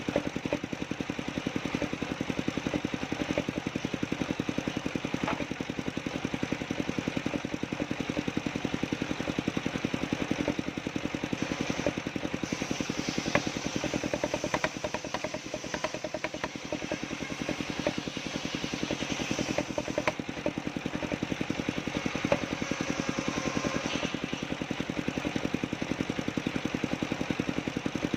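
Engine of a homemade sawmill running steadily with a fast, even firing beat, with some clatter and a few sharp knocks.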